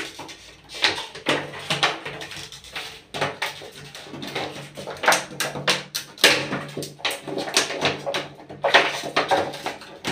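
Stiff plastic blister packaging and paper crinkling and crackling in the hands as they are handled and pulled open, with many irregular sharp crackles.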